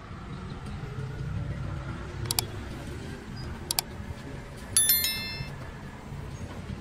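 Low steady rumble of street traffic, with two sharp clicks a second and a half apart and a brief bright metallic ring about five seconds in, the loudest sound.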